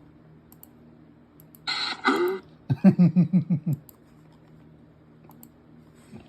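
A voice: a short hissy burst in two parts about two seconds in, then a quick run of about eight short pitched pulses lasting about a second, over a steady low hum.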